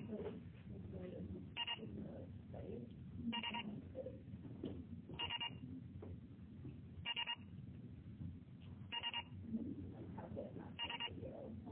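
Electronic alarm clock beeping in short bursts of rapid beeps, repeating about every two seconds. Near the end it turns into continuous beeping.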